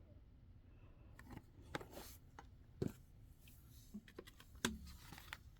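Faint scattered clicks and taps of trading cards and their packaging being handled, with a few sharper ticks spread through.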